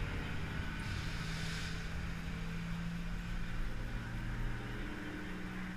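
Indoor boat dark ride ambience: a steady low hum, with a short hiss about a second in.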